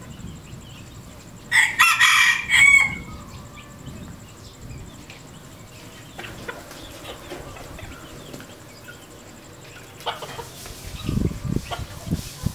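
A red junglefowl rooster crows once, a short crow about a second and a half in that ends on a held higher note. Softer clucking from the flock follows, with a few dull thumps near the end.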